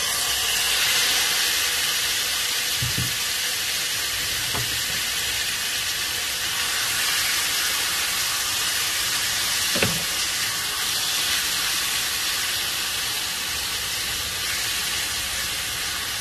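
Marinated chicken strips frying in hot olive oil in a frying pan: a loud sizzle starts suddenly as they go in and holds steady while they are stirred. A few light knocks of a wooden spatula against the pan come through it.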